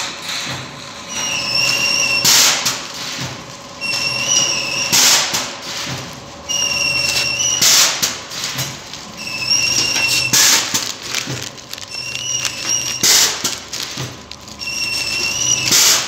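Astra-56 automatic auger-fed powder packing machine running its pouch-making cycle about every 2.7 seconds: each cycle has a short, loud burst of hiss and a high whine of about a second that steps up slightly at its end, over a low mechanical hum.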